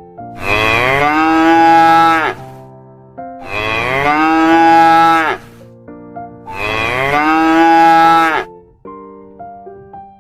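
Cow mooing three times, each moo a long call of about two seconds, with a piano melody between the calls.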